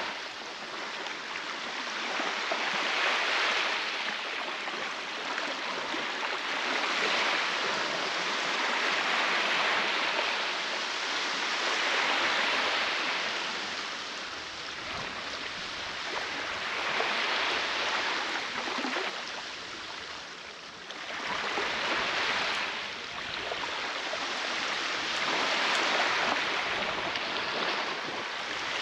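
Baltic Sea waves breaking on the beach: a steady rush of surf that swells and eases every few seconds.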